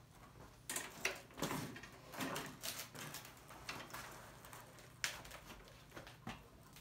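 Handling noises from a Honda walk-behind lawn mower being tipped back on its handle to drain the oil: irregular clunks, scrapes and rattles of the deck, wheels and handle, with a sharp knock about five seconds in.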